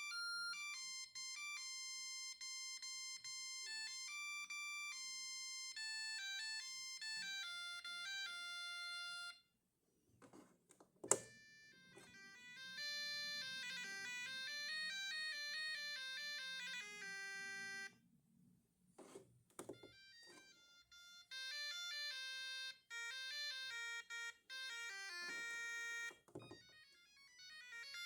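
Siemens A50 mobile phone playing its ringtones in turn: three electronic beeping melodies of several seconds each, with short pauses between them. A sharp click about eleven seconds in, in the first pause, is the loudest sound.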